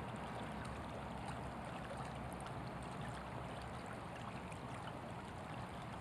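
Creek water flowing over a shallow bed: a steady, even rush with no distinct events.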